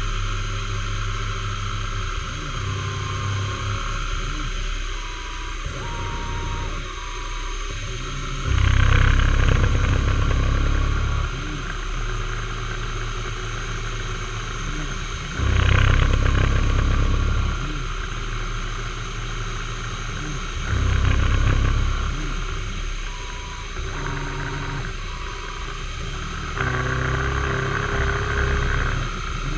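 Milling machine running with its end mill cutting a metal block held in a vise. The cutting noise swells four times for two to three seconds each over the steady whir of the spindle.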